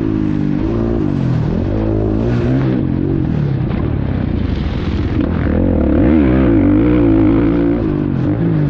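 Two-stroke motocross bike ridden hard on a dirt track, its engine pitch repeatedly rising and falling as the throttle is opened and rolled off.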